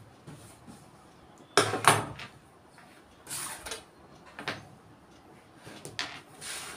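Handling sounds on a tailor's cutting table: two sharp knocks close together about a second and a half in, then brief rustles of cloth and a few lighter taps.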